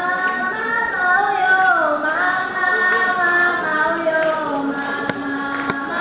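A high female or young voice singing a slow melody, with long held notes that glide between pitches. A few faint clicks come in the second half.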